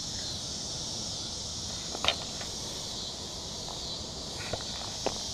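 Steady, high-pitched chorus of insects, with a few short taps and clicks on top, the loudest about two seconds in.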